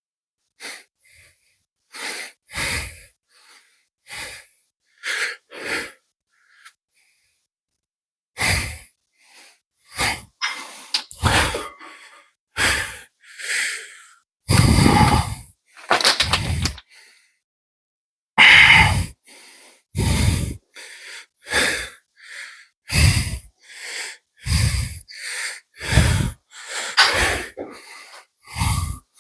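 A man breathing hard in loud, sharp breaths about one a second, with a pause of about two seconds a third of the way in and faster breaths after it: heavy exertion during a cardio workout.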